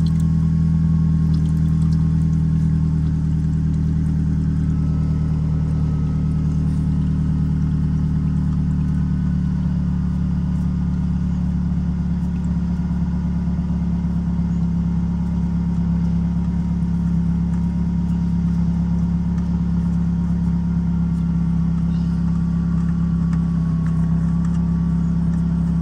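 A steady, unchanging low engine hum, as of a motor idling.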